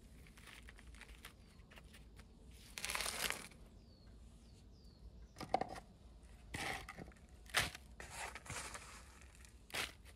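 Handling noises of material being worked by hand: irregular crinkling and rustling, a longer tearing rustle about three seconds in, and several sharp clicks in the second half.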